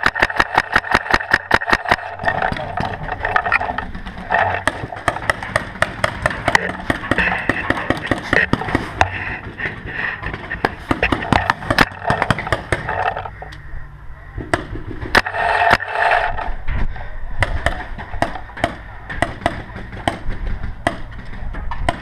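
Paintball markers firing during a game: a rapid, even string of shots for about the first two seconds, then irregular pops and cracks of scattered shots and hits.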